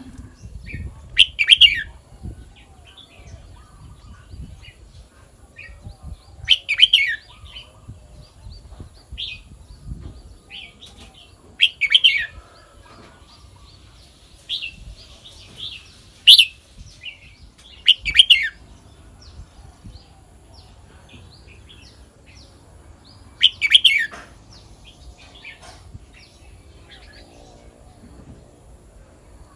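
Red-whiskered bulbul singing: six short, loud song phrases of quick rising and falling notes, with softer scattered chirps in between.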